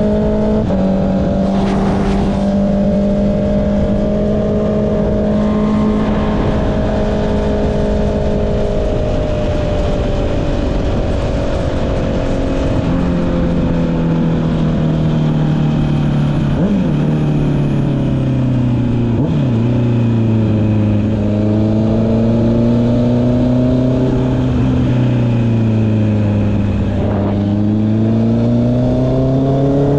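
Honda CB650R's inline-four engine through an Akrapovic exhaust, heard from the rider's seat over steady wind rush while riding. The engine holds a steady note, then drops lower through several quick gear changes, each with a short sharp blip, and climbs again near the end.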